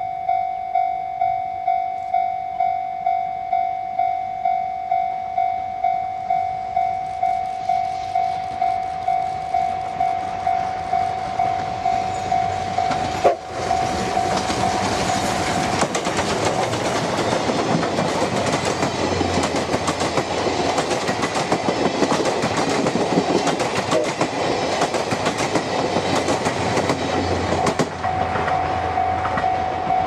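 Level-crossing bell ringing steadily at about two strokes a second while the C57 steam locomotive and its coaches approach. About halfway through, the loud rush of the passing steam train, locomotive working and wheels rolling, drowns the bell. The bell is heard again near the end.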